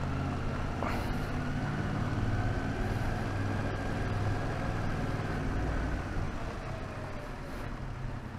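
Yamaha Tracer 7 motorcycle's parallel-twin engine running steadily while the bike is ridden, with a low, even engine hum; it eases off slightly near the end.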